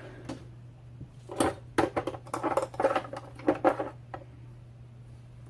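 Rapid, irregular clicks and knocks of a 3D-printed eBike battery pack being handled during disassembly, bunched between about one and a half and four seconds in.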